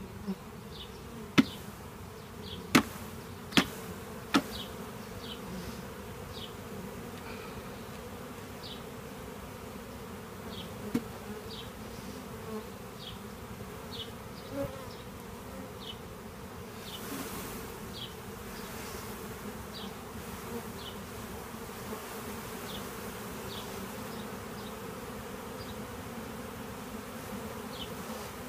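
Honeybees from a package buzzing in a steady swarm hum as they are shaken out into the hive. Four sharp knocks in the first few seconds as the plastic package cage is tapped to knock the bees loose.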